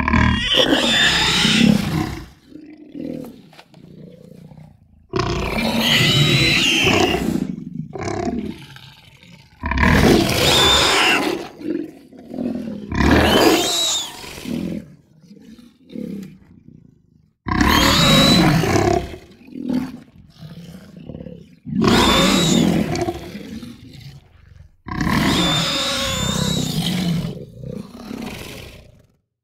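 Sound-effect dinosaur roars: seven loud, rough roars, each about two seconds long and a few seconds apart, with quieter low growls between some of them.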